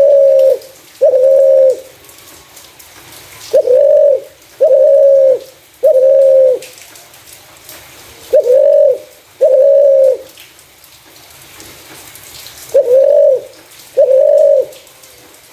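Spotted dove (terkukur) cooing: phrases of two or three drawn-out, low coos, each phrase repeated about every four seconds.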